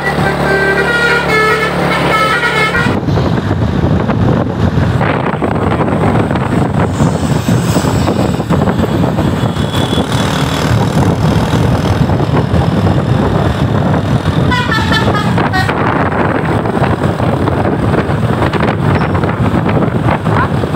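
A bus's telolet basuri musical horn playing a quick melody of stepped notes, cutting off about three seconds in. Heavy bus engine and road noise follows, and a second short burst of the horn melody comes about fifteen seconds in.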